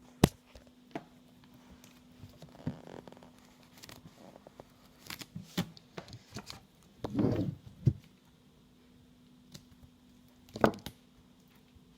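Packaging being worked open by hand: scattered clicks, taps and short tearing and crinkling rustles, with a sharp click just after the start and louder rustles about seven and ten and a half seconds in.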